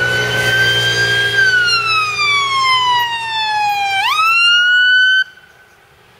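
Fire engine siren wailing: a slow falling sweep, then a quick rise about four seconds in, cut off suddenly about a second later. The truck's engine hums underneath.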